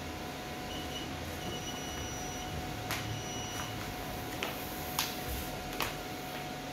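A large sheet of paper being slid and flexed on a work table, giving four or so sharp crackles and taps in the second half over a steady room hum with a faint constant tone.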